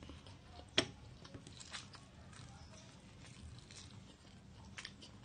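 A person chewing a mouthful of instant fried noodles behind a hand held over the mouth: faint wet mouth clicks and smacks, with one sharp click about a second in.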